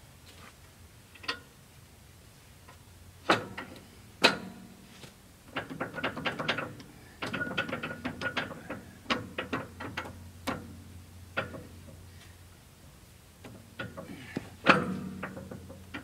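Metal parts of a sawmill being handled: a few sharp knocks, then a long stretch of quick, uneven clicking, and a loud knock near the end.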